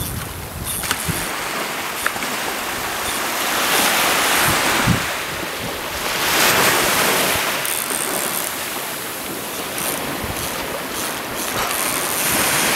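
Small waves washing up onto a sandy beach and drawing back, the surf swelling twice, about four and six seconds in.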